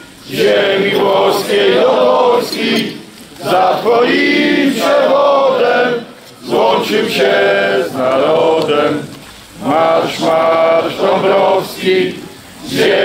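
A large crowd of men singing a chant in unison, in phrases of about three seconds with short breaks between them.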